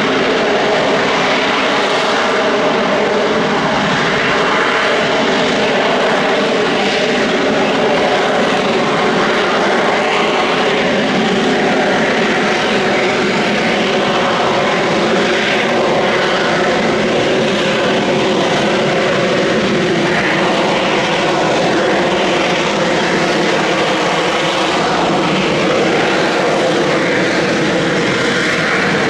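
Harrier jump jet's Pegasus vectored-thrust turbofan running at hover power, a loud, steady rush of jet noise with a few steady low tones through it.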